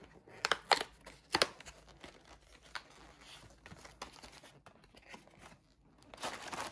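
Glico Bisco paperboard biscuit box being torn open along its perforated flap: several sharp tearing snaps in the first second and a half, then softer rustling of the card. Near the end comes a longer crinkly rush as the box is tipped and the foil-wrapped biscuit packets slide out.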